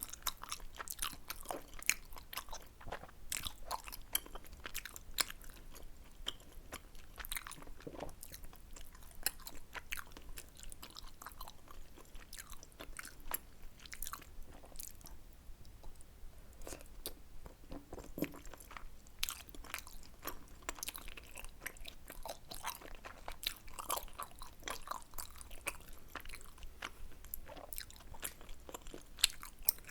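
Close-miked chewing and wet mouth sounds of someone eating tteokbokki, dense irregular smacks and clicks with a short lull a little after halfway.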